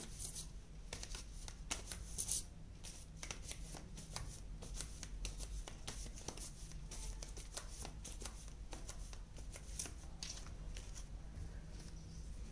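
A deck of angel oracle cards being shuffled and handled: a run of quick soft flicks and clicks from the cards, over a low steady hum.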